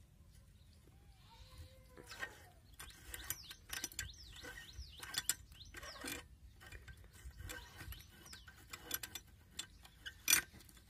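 Scattered small metallic clicks and clinks from a brass sprinkler nozzle head being unscrewed by hand from its socket after being loosened with a wrench. The sharpest click comes near the end.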